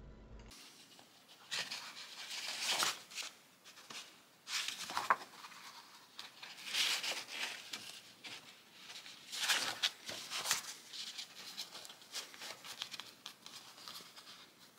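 Paper rustling and crinkling as hands handle and flex a soft cover journal and its decorative paper cover, in several irregular bursts about a second long.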